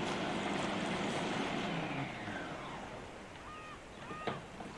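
Food processor motor running, puréeing purslane into a soup-like paste, then switched off about two seconds in and spinning down with a falling whine. Near the end come short plastic squeaks and a click as the lid is turned.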